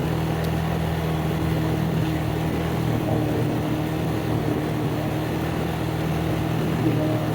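ATV engine running at a steady pitch, without revving.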